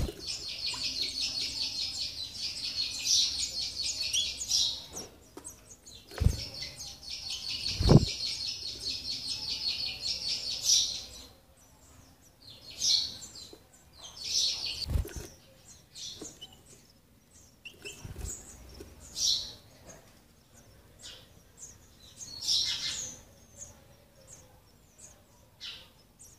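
Sparrow nestlings begging for food: a fast, continuous chatter of high calls for about the first eleven seconds, then scattered short chirps. A few dull thumps among them, the loudest about eight seconds in.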